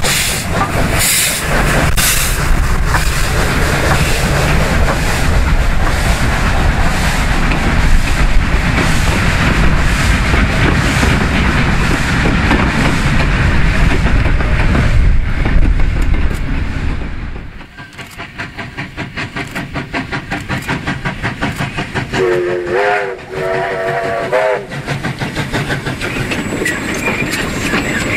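Two steam locomotives, K190 and R761, pass hauling hard with heavy exhaust beats, and then wooden passenger carriages clatter over the rail joints. After a sudden change of sound about two-thirds of the way in, a steam locomotive chuffs in a steady rhythm, and a steam whistle sounds in two short blasts.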